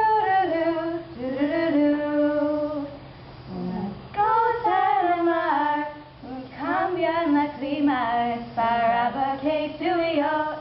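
A young female voice singing a song, with long held notes and a couple of short breaths between phrases.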